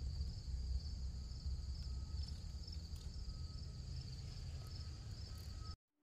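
Steady high-pitched chirring of insects in a garden, a continuous trill with a regular pulse, over a low rumble. It cuts off suddenly near the end.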